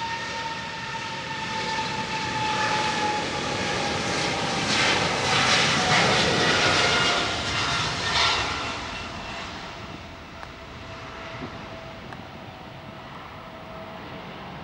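Jet engines of a twin-engine Boeing wide-body airliner passing close by. The noise builds to its loudest about six to eight seconds in and then fades, while a whining tone falls steadily in pitch as the aircraft goes past.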